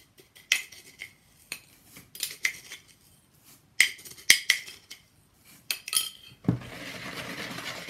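Sugar being spooned out of a glass jar: an irregular run of sharp clinks and taps of the spoon against the glass. About six and a half seconds in, a steady hiss takes over.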